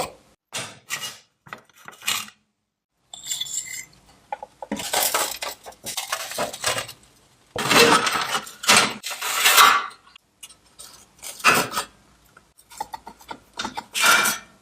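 Metal clinking and scraping in irregular bursts, some short and some lasting a second or two, typical of metal parts and tools being handled.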